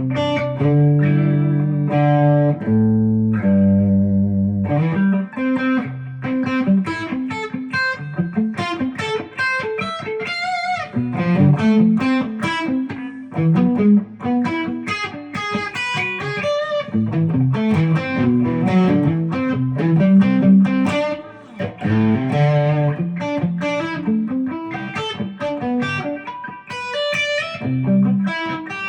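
An Epiphone Les Paul Custom electric guitar being played, with fast runs of single notes mixed with held chords.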